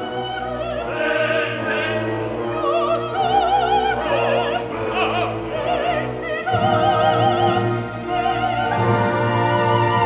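Background music: operatic singing, a voice with wide vibrato over a sustained orchestral accompaniment.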